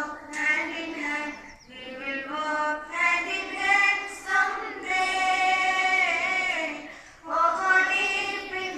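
Schoolchildren singing together in unison, an assembly song sung in phrases with short breaks and one long held note about halfway through.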